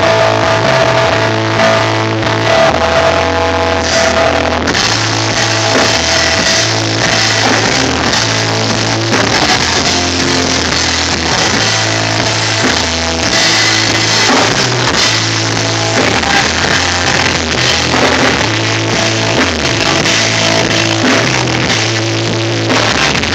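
Punk band playing live: loud electric guitar, bass and drum kit with cymbals going without a break.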